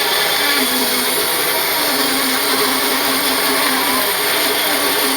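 Homemade sawmill running: a loud, steady mechanical whir, with a hum that sets in about half a second in.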